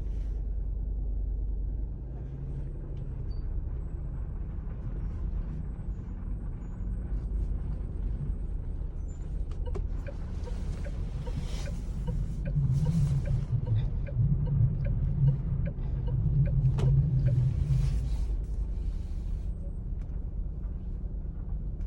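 Geely Atlas Pro's brakes giving a low groan as the car creeps off from a cold start in frost, louder in the second half, over the low rumble of the car rolling. The owner suspects the brake pads; the noise comes only when cold, at low speed, over roughly the first hundred metres.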